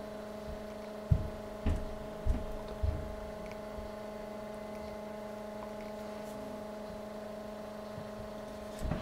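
Stepper motors of a Zen Toolworks 7x12 CNC machine humming steadily with several held tones while driving an axis at a very slow feed of about 10 mm per minute. Four soft low thumps come in the first three seconds.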